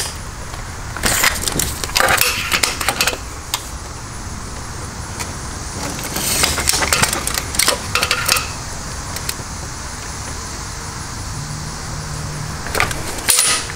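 Steel tape measure being pulled out and handled against a metal crossbar, its blade rattling and clicking in short spells several times, over a steady low hum.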